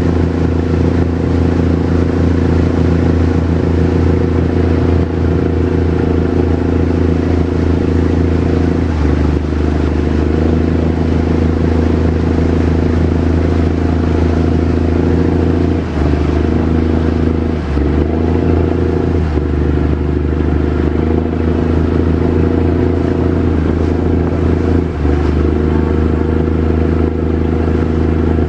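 Speedboat engine running loudly and steadily from on board, its pitch shifting slightly a few times as the engine speed changes.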